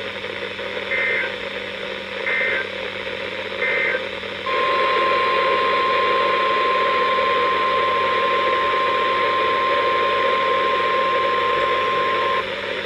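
Weather-radio emergency alert signal: three short screeching SAME data bursts about a second and a half apart, then the single steady 1050 Hz warning alarm tone held for about eight seconds, which stops shortly before the end. Radio static hiss runs underneath, marking the start of a new warning broadcast.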